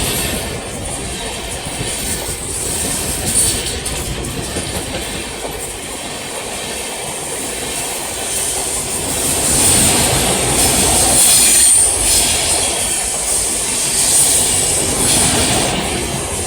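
Indian Railways Padmawat Express passenger train running on the track: a continuous rumble and clatter of its wheels on the rails, with a steady high-pitched squeal. It grows louder about ten seconds in.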